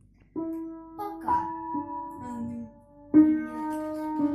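Music: a simple melody of steady held notes on an electronic keyboard, changing note every second or so.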